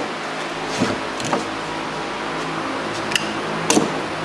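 Plastic 3/8-inch air hose being handled against a whirlpool tub shell: a few short knocks and clicks, about four in all, over a steady hiss.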